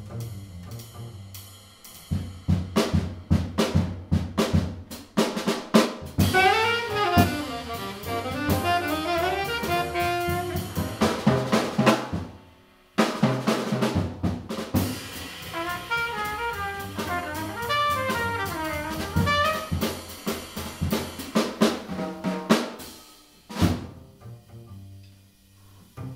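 Live small-group jazz: a drum kit plays alone at first, then a trumpet solos over the drums and walking bass in two phrases, with a brief break between them. The drums carry on near the end.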